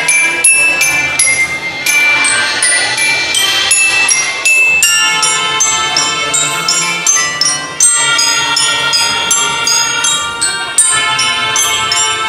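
Drum band playing: marching bells ring out a quick melody of struck notes over snare drums, with melodicas holding notes alongside, fuller from about halfway through.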